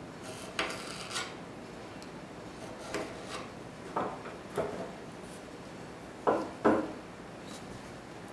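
Sharp chisel edge scraping across a hardwood stretcher to score a knife-line for a tenon shoulder: short scraping strokes, mostly in pairs, the loudest pair near the end.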